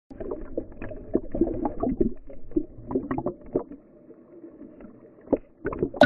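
Water sloshing and splashing against a camera held at the water surface, sounding muffled. It is busy at first, then quietens about two-thirds of the way through, with a couple more splashes near the end.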